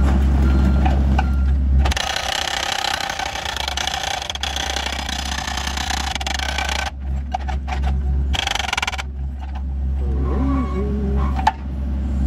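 Hydraulic rock hammer on a mini excavator pounding hard rock, with the excavator's engine running underneath. The sound breaks off sharply twice in the second half.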